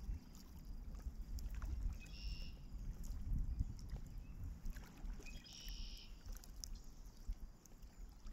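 Kayak paddle strokes: the blades dipping and splashing with water dripping off them, over a steady low rumble. Two brief high-pitched sounds come about 2 and 5.5 seconds in.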